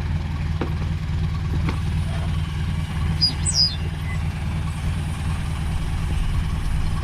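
Vehicle engine idling steadily with a low, even hum. A brief high, falling chirp sounds about three seconds in.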